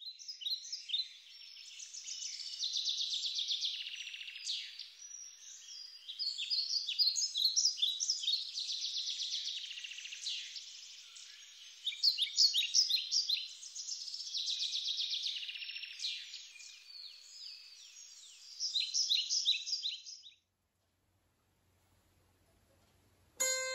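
Songbird singing in long phrases of rapid high-pitched chirps and trills, broken by short gaps and stopping about 20 seconds in. After a short silence, a 25-string table harp begins plucking just before the end.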